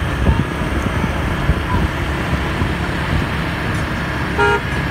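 Street traffic noise, a steady low rumble of nearby engines and road noise, with one short horn toot about four and a half seconds in.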